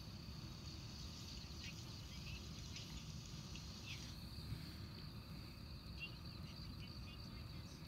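Faint, scattered little clicks of a hamster gnawing and chewing a piece of cooked meat, over a steady high-pitched whine and a low background hum.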